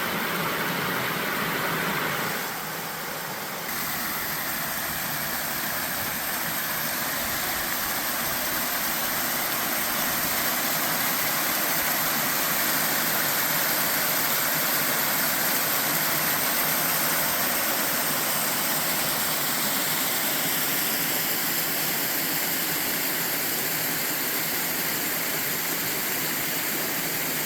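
Steady rush of water from a stream's waterfalls and cascades, an even hiss with no rhythm.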